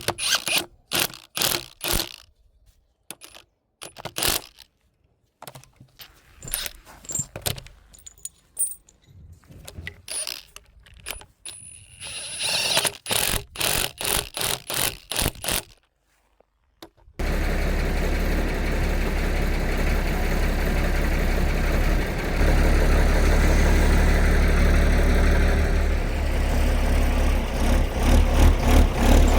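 Metal clinking, knocking and scraping in short irregular runs, hardware and tools being handled. A little over halfway through, a tractor engine comes in abruptly and runs steadily, stepping up a little in loudness about two-thirds of the way through.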